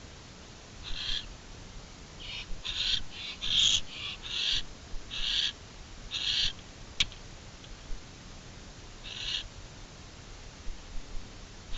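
Barn owls giving about ten short, harsh, hissing calls, most in a quick run early on and then spaced a few seconds apart, with one sharp click about seven seconds in.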